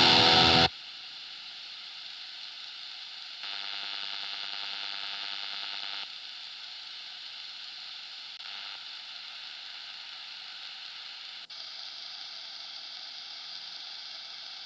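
A distorted electric guitar through a high-gain NAM amp capture cuts off about half a second in, leaving the steady hiss of the ungated high-gain chain. A buzzing hum joins the hiss for a few seconds, and near the end the hiss changes tone.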